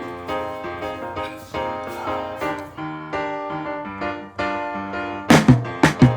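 Background music led by piano playing sustained chords, with a regular drum beat coming in about five seconds in.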